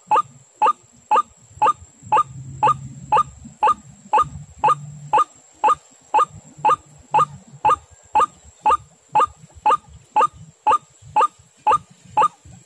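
White-breasted waterhen calling: one short note repeated at an even pace, about two and a half a second, over a faint steady high whine.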